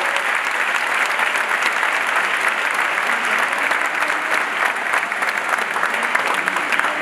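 A large audience applauding, dense, steady clapping.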